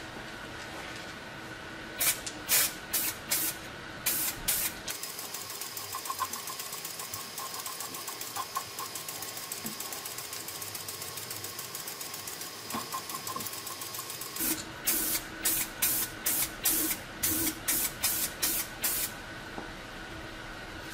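Spray paint hissing onto a steel helmet. It starts with a few short bursts, then a long steady spray lasting about ten seconds, then a quick run of short bursts at about three a second.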